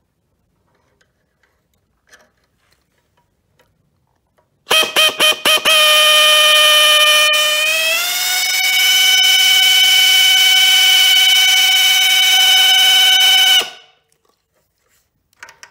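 Electric drill spinning the oil pump of an Oldsmobile Jetfire engine through a chisel in a half-inch socket, priming the pump with oil. A few quick trigger blips about five seconds in, then a steady high motor whine that rises slightly in pitch partway through and cuts off near the end.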